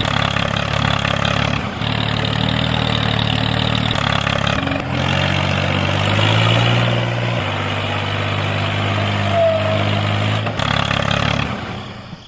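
Tractor engine running steadily, rising in pitch about six seconds in, then fading out near the end.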